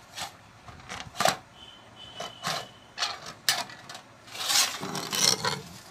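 Hand tin snips cutting thin sheet metal: a series of short, sharp snipping crunches, one per stroke of the blades, with a longer rasping cut a little before the end.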